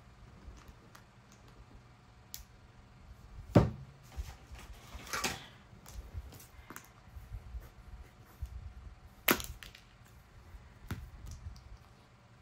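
Paper cutouts and small craft items being handled and set down on a tabletop: scattered light taps and clicks, two sharper knocks, and a brief paper rustle.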